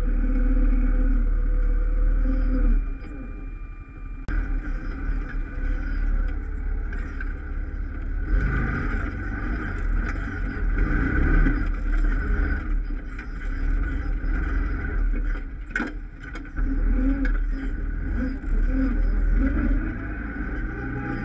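ATV engine running as it rides a rough forest trail, with the throttle rising and falling. There is one sharp knock about three-quarters of the way through.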